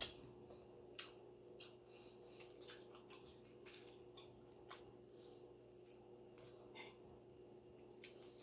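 Shell of a cooked shrimp crackling and snapping in irregular short clicks as it is peeled apart by hand, with a sharp knock near the start. A faint steady hum runs underneath.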